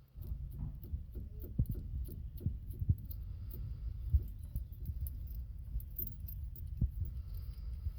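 Close handling noise: a low rumble with scattered knocks and clicks, and light jingling of keys.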